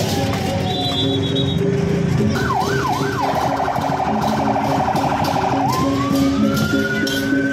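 Electronic vehicle siren changing modes: a few quick up-and-down sweeps about two seconds in, then a fast warble, then a slow rising wail.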